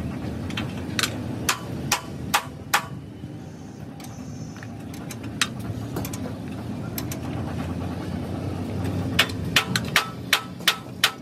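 Hammer blows on metal during truck body fabrication: a run of about five strikes roughly half a second apart, a single blow a few seconds later, then a quicker run of six near the end. A steady low rumble runs underneath.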